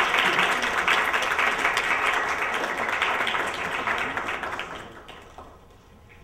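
An audience applauding, the clapping fading away about four to five seconds in.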